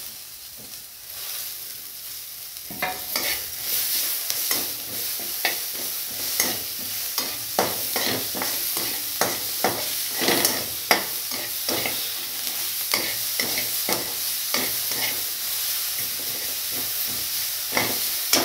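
Chopped onion, chillies and tomato sizzling in oil in a metal kadhai while a slotted metal spatula stirs them, scraping and knocking irregularly against the pan from about three seconds in.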